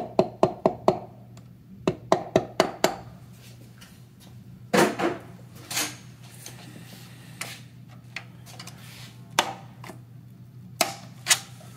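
Soft-faced mallet tapping on a connecting-rod cap of an AC Ace engine to knock the cap loose: a quick run of light taps with a short ring, a few more taps about two seconds in, then occasional single knocks and clinks of metal tools and parts. A steady low shop hum runs underneath.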